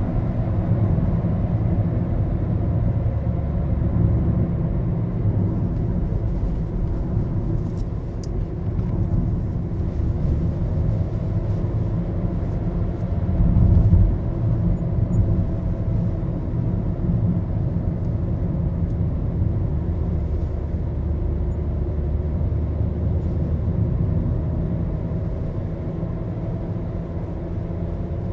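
Maruti Suzuki Baleno on the move, heard from inside the cabin: a steady low engine and road rumble, with a brief louder rumble about halfway through.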